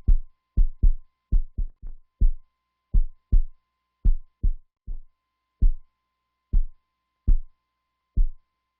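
Heartbeat sound effect: low thumps in lub-dub pairs, about one beat a second, the pairs giving way to single, more widely spaced thumps toward the end, over a faint steady high tone.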